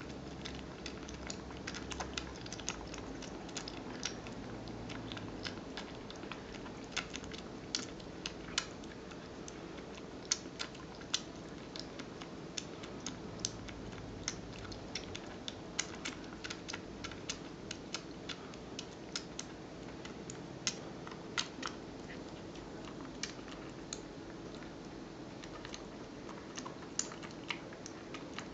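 Himalayan kitten suckling milk from a feeding bottle: irregular sharp clicks and smacks from its mouth on the teat, a few a second, over a low steady background hum.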